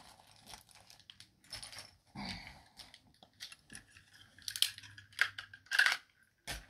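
Small plastic packaging and miniature items being handled: intermittent crinkling and rustling, with a run of sharper rattles and clicks in the second half and one last sharp click near the end.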